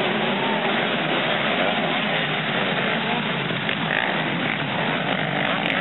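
A pack of motocross bikes accelerating up a dirt track after the start, many engines revving together in a continuous, loud din with pitches rising and falling.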